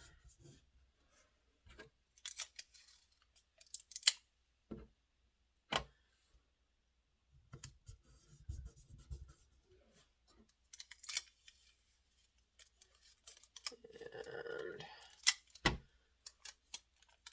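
Acid-free tape being handled to make a T-hinge: short crackling rasps of tape pulled and pressed, with a few sharp clicks scattered among them.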